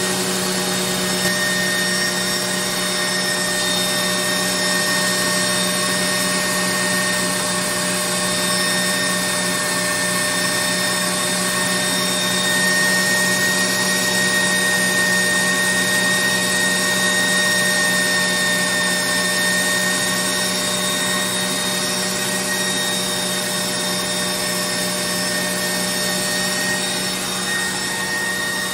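KitchenAid stand mixer motor running steadily, turning the Gourmet Pasta Press attachment's auger as it extrudes rigatoni dough: an even hum with a high whine.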